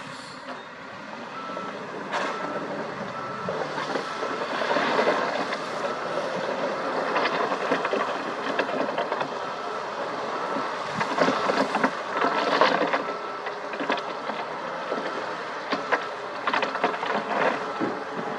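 Diesel engines of a wheel loader and dump trucks running, with a reversing alarm beeping over them. In the second half, a dump truck's tipping bed sends rock and soil sliding out in a run of knocks and clatter.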